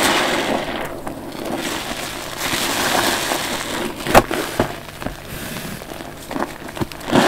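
Sponges soaked in soapy cleaning solution being squeezed by hand, each squeeze a swell of wet crackling and squelching. There is a sharp click about four seconds in, and a new squeeze starts near the end.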